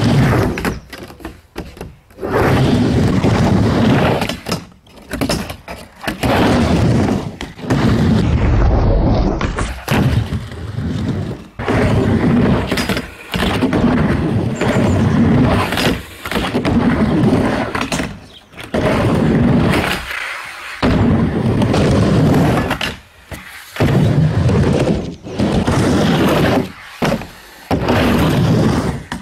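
Skateboard riding a homemade wooden mini ramp: rumbling wheels on the ramp surface with thunks and slaps from the board and the landings, in short stretches that cut off abruptly.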